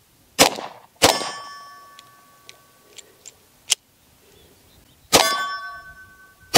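Glock 23 .40 S&W pistol fired: two shots about two-thirds of a second apart, then a third shot about five seconds in. A steel target rings with a clear metallic ping after the second and third shots.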